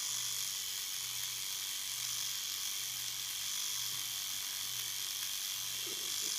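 Electric tattoo machine buzzing steadily as it marks the sedated puppy, its low hum swelling and fading about once a second.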